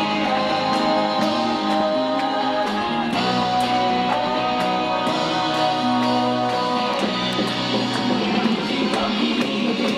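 Recorded pop music with guitar and a steady beat, played over outdoor loudspeakers.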